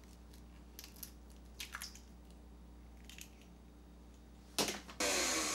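A few faint clicks of an eggshell being handled, then an egg cracked sharply on the rim of a stand mixer's bowl about four and a half seconds in. Half a second later the stand mixer starts up, beating the egg into the cake batter.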